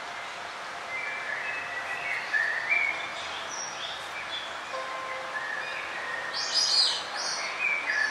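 Several forest birds chirping and calling over a steady background hiss, with a louder cluster of high chirps a little past the middle.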